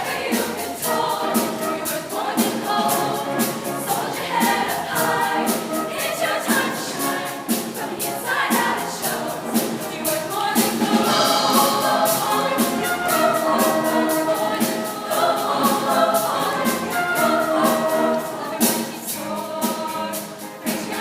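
A girls' vocal group singing together with a solo voice, over backing music with a steady beat.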